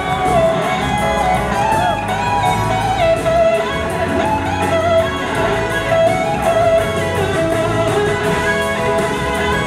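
Live rock band music led by a Gibson SG electric guitar playing a lead solo with gliding, bending notes, over drums and bass.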